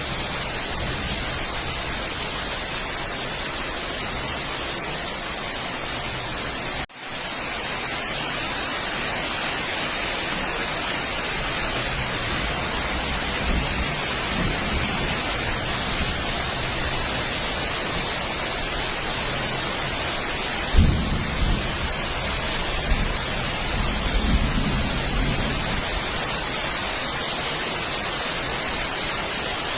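Steady rain falling, a dense, even hiss. It cuts out for an instant about seven seconds in, and brief low rumbles come about twenty-one and twenty-four seconds in.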